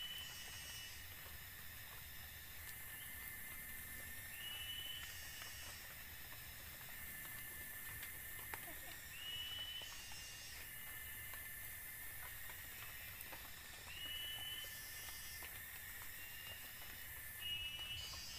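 Rainforest ambience: insects buzzing with a steady high drone and a higher hiss that swells and drops in blocks, while a short rising call repeats every four to five seconds. There are a few faint clicks and rustles from grass thatch being handled.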